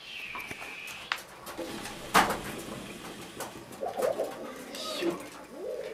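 Water bubbling and gurgling in a hubbly (hookah) base as smoke is drawn through it, with a single sharp knock about two seconds in.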